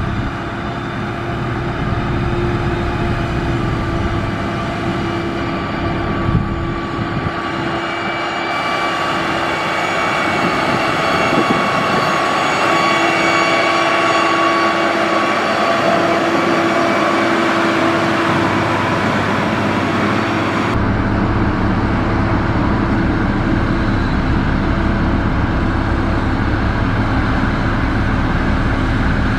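Heavy diesel construction machinery running steadily with a whining tone. The sound changes abruptly twice, about a third of the way in and again about two-thirds in.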